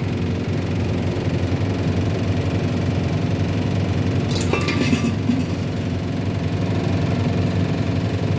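A steady low hum of a running motor, with a brief clatter of metal utensils about four and a half seconds in.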